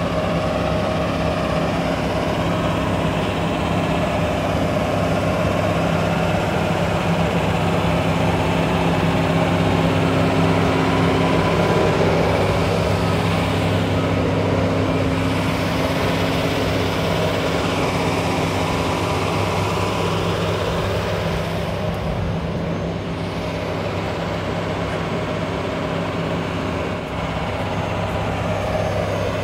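Steady, loud mechanical hum of ground machinery running beside a parked Boeing 737-800, with several low steady tones.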